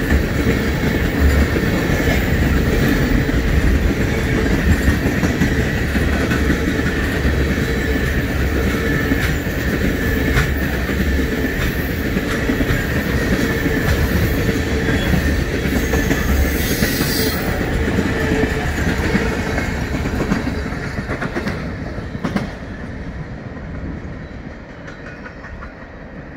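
Freight train of railroad tank cars rolling past close by, wheels clacking over the rail joints, with a thin steady whine from the wheels on the rail. The sound fades over the last several seconds as the end of the train moves away.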